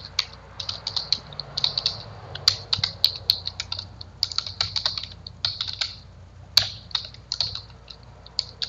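Typing on a computer keyboard: quick, irregular bursts of key clicks with short pauses between them.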